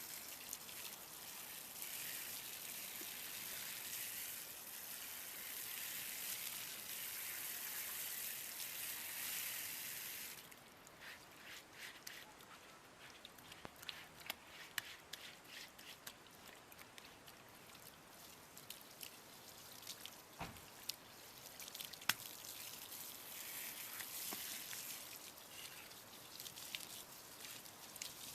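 Water running steadily, then cutting off suddenly about ten seconds in. Scattered drips and light taps follow, and the water runs again briefly near the end.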